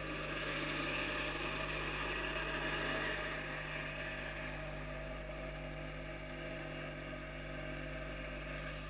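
A steady engine drone, a little louder in the first few seconds and then easing, over a constant low electrical hum.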